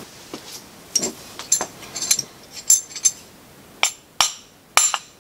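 A tool tapping on metal about a dozen times, at an irregular pace, each tap with a short high metallic ring. It is knocking a pressed-on part off a variable-geometry turbocharger's core.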